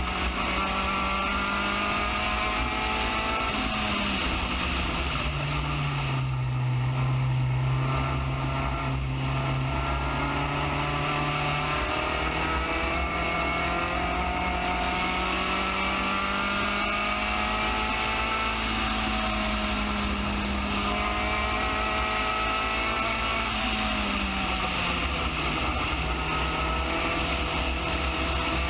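Spec Racer Ford GEN3's 1.6-litre four-cylinder engine at race pace, heard from on board the open car. The revs climb slowly, drop about four seconds in, climb again through a long pull, and drop again near the end.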